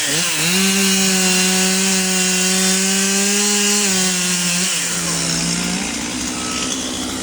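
Two-stroke chainsaw at full throttle cutting into a tree trunk, running steadily for about four seconds. Its pitch drops a step as the cut loads it, then it falls back toward idle about six seconds in.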